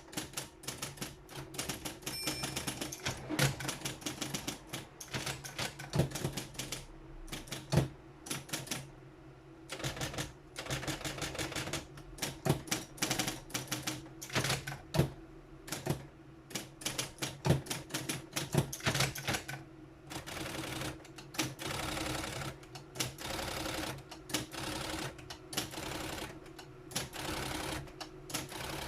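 Triumph-Adler 131D electric typewriter typing: runs of rapid key strikes over the steady hum of its running motor.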